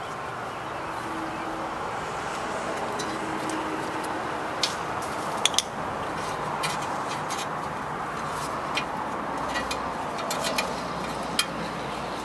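Hand tools clicking and clinking irregularly against a steering knuckle while the small bolt holding the ABS line keeper is worked loose, over a steady background hiss. The sharp clicks come about halfway in and continue, unevenly spaced.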